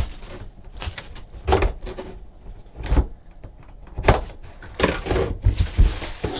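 Plastic shrink wrap crinkling as it is torn off a cardboard box, then the box being cut open with a box cutter and handled. It comes as short crackles and knocks about a second apart, with quieter rustling between.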